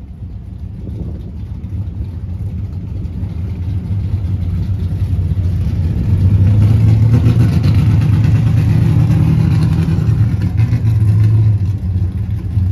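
Pickup truck's engine running at idle with a deep, steady rumble, growing louder over the first half and then holding steady as it sits in line.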